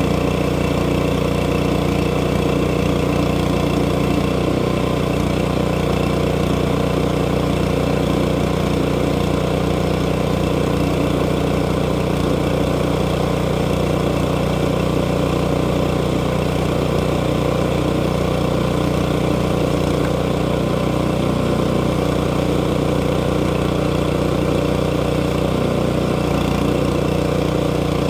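Small gasoline engine of a portable bandsaw sawmill running steadily at an even speed.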